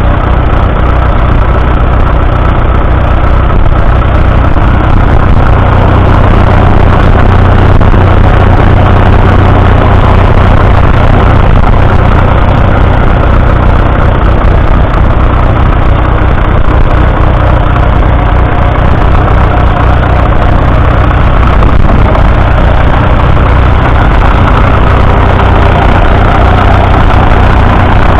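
1963 Fordson Super Major's 3.6-litre four-cylinder diesel engine running steadily at an even engine speed.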